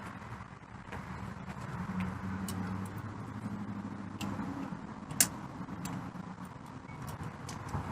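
Steady low rumble of a vehicle engine and road noise, with scattered light ticks and one sharp click about five seconds in.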